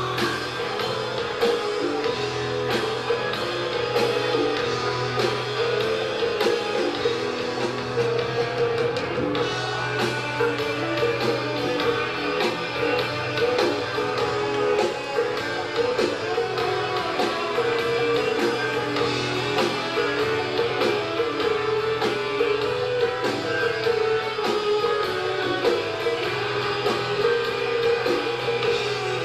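Live rock band playing: electric guitars over bass guitar and a drum kit, with a steady beat throughout.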